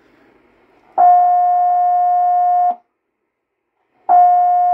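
Steady test tone from the Cobra 29 WX NW ST CB radio's speaker, the signal generator's audio coming through. It comes on about a second in, holds for nearly two seconds and cuts off suddenly, then comes on again near the end. The tone gets through only while the circuit board is pressed, the sign of an intermittent bad solder joint on the board.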